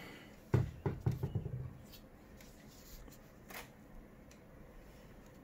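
A cat bumping and brushing against a desk microphone and its shock mount as it walks across the desk: a quick run of low thumps and rubbing about half a second in, lasting about a second, then a few faint taps.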